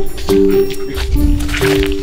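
Background music: held chords that change every half second or so, over a light beat.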